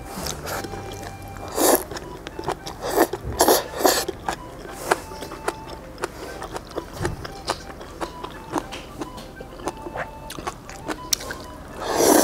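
Noodles slurped from a bowl of jjamppong (spicy seafood noodle soup), several loud slurps with the strongest near the end, and chewing with small clicks in between.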